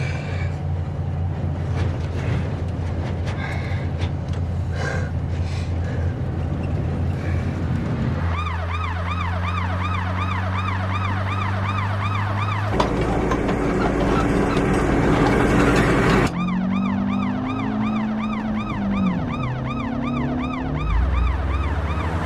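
A vehicle engine running steadily, then about eight seconds in a police siren starts up with a rapid up-and-down wail and keeps going, jumping in level at a couple of points.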